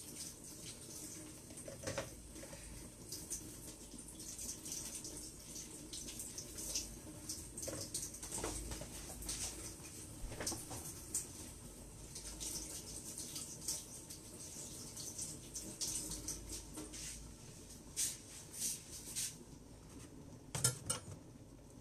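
Water running and splashing at a kitchen sink, with dishes and utensils clinking and knocking now and then as things are washed.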